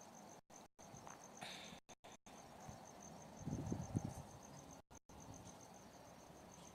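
Faint insect trill, a steady high pulsing note at about five pulses a second, with a short low bump of noise about three and a half seconds in.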